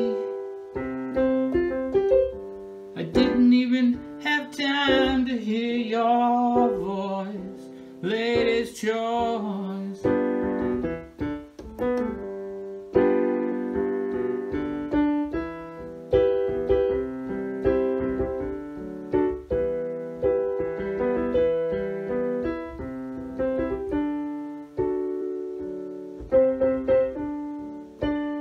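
Piano playing an instrumental passage of a song: repeated chords and struck notes in a steady rhythm. From about three to nine seconds in, a wavering melody line with vibrato rides over it.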